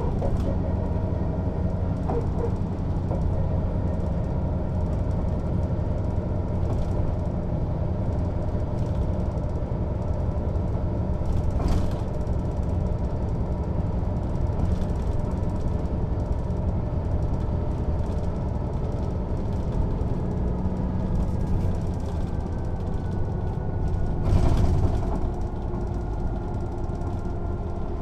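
Mercedes-Benz O 407 city bus's inline six-cylinder diesel engine and drivetrain running steadily, heard from on board. There is a sharp knock about twelve seconds in and a louder rattling surge about twenty-four seconds in.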